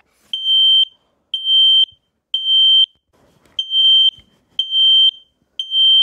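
Kidde KN-COSM-BA smoke alarm sounding its piercing, high-pitched beep in the temporal-3 pattern: three half-second beeps a second apart, a short pause, then three more. This pattern is the alarm's signal for smoke or fire.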